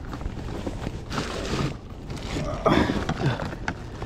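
Handling noise as a large flathead is shifted on a plastic measuring mat: rustling and light knocks, with a louder knock about two-thirds of the way through.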